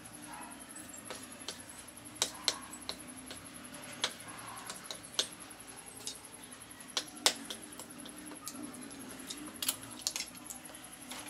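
Wooden chopsticks clicking and tapping against a ceramic plate while noodles are picked up. The sharp clicks come at irregular intervals, a dozen or so, some loud and some faint, over a faint steady hum.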